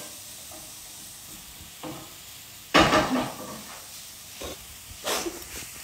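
Steady sizzle of food frying in a pan on the hob. A loud, short bump and rustle comes about three seconds in, with a few softer knocks around it.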